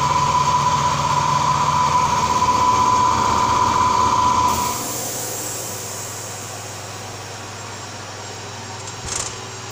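Retrofitted 1988 Romi Centur 30A lathe running with a steady high-pitched whine over a low hum, which stops about four and a half seconds in, leaving a quieter steady hum.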